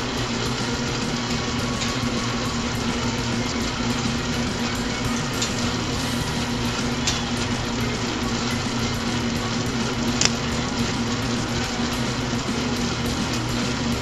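Bluerock Model 945 wire stripping machine running steadily: its 3 HP single-phase electric motor and gear-and-belt drive give a constant hum while cable is stripped, with a few sharp clicks now and then.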